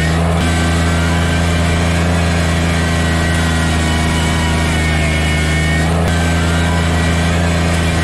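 Kubota BX sub-compact tractor's three-cylinder diesel engine running steadily at working speed while its loader bucket pushes snow, heard from inside the cab.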